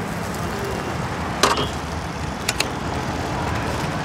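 Egg omelette frying in a hot pan with a steady sizzling hiss, under street traffic noise. A sharp tap comes about one and a half seconds in, then two quick ticks a second later.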